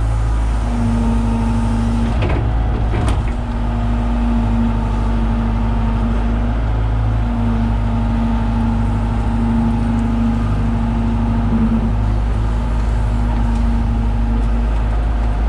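John Deere 190E excavator's diesel engine running steadily, with a humming tone that comes and goes. A couple of sharp knocks sound about two to three seconds in.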